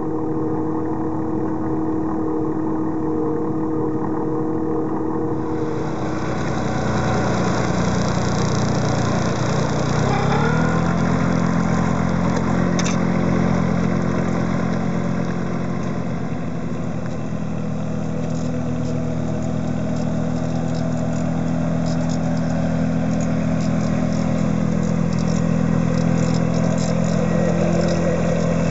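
Engine of a ride-on weed-control machine running. A steady hum in the first few seconds changes about five seconds in, the pitch rises about ten seconds in, and the engine then runs steadily.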